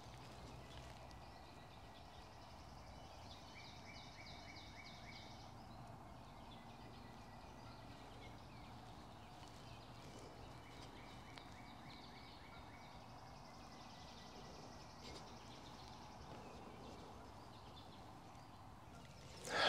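Quiet woodland ambience with a faint bird call twice, each lasting about two seconds, and a sudden loud rustle of movement at the very end.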